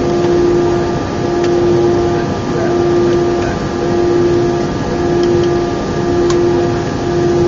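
Airbus A319 cabin noise in flight: a steady rumble of engines and rushing air with a droning hum that swells and fades about once a second.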